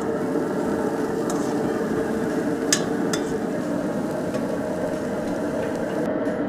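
RecTec Bullseye pellet grill running with a steady fan hum, while metal tongs click a few times against the grill grate as chicken wings are laid on.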